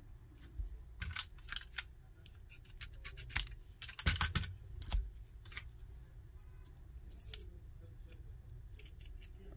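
Plastic shrink wrap being peeled and pulled off a small lithium-ion battery pack by hand: scattered sharp crackles and clicks, busiest about a second in and again around the middle, over a faint low hum.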